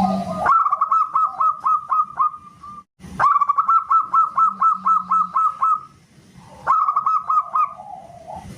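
Zebra dove (perkutut) singing three phrases of rapid staccato cooing notes, about five or six a second. The first two phrases are long, and the third is short and trails off into lower notes near the end.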